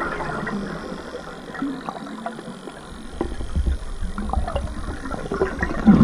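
Scuba diver's breathing heard underwater: a gush of regulator exhaust bubbles fades in the first second, and a quieter lull of faint crackling and water noise follows. A new burst of exhaled bubbles starts just at the end.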